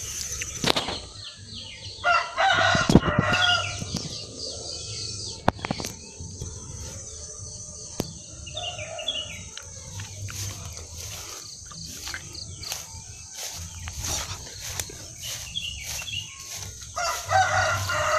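Rooster crowing, one long crow about two seconds in and another near the end, with a fainter call in between.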